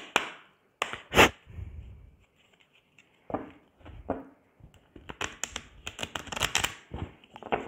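A deck of cards being shuffled by hand: a few separate snaps of the cards early, then a quick flurry of card clicks from about five seconds in as the halves are pushed together.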